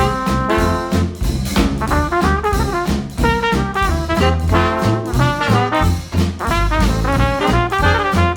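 Background music with a steady beat, a bass line and a moving melody.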